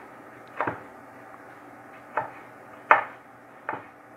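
Kitchen knife chopping through a tomato onto a wooden cutting board: four short knocks, unevenly spaced, the third the loudest.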